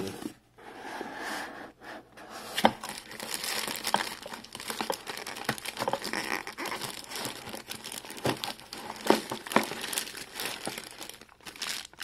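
Clear plastic packaging bags crinkling and rustling as hands handle and lift plastic-wrapped lock parts out of a cardboard box, in irregular crackles with a few sharper snaps.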